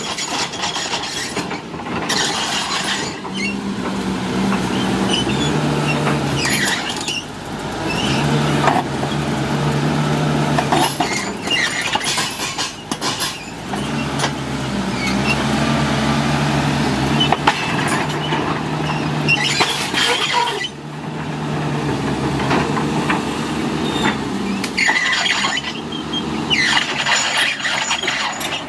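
Caterpillar 320C tracked excavator at work: its diesel engine runs under changing hydraulic load, its note stepping up and down, with squealing and clanking from the steel tracks and scattered cracks as brush and branches break.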